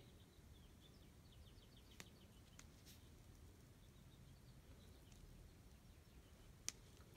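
Near silence: faint room tone with a quick run of faint high chirps through the first few seconds and a few soft clicks.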